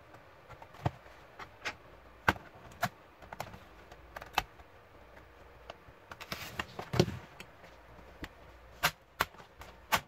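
Plastic clips of a Toshiba Satellite C55 laptop's bottom case snapping loose as the back cover is pried off with a pry tool: irregular sharp clicks and snaps, the loudest about seven seconds in.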